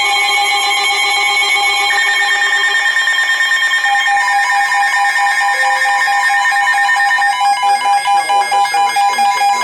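Electronic alert tones: several steady pitches sound together and step to new pitches every second or two, pulsing rapidly in the last couple of seconds.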